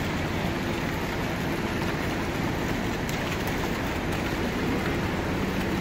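Fast mountain river rushing over a rocky bed: a steady, even water noise.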